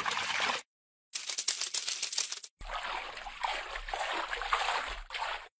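Watery splashing and trickling sound effects with quick crackly ticks, in short clips that cut to dead silence twice: about half a second in, and again midway.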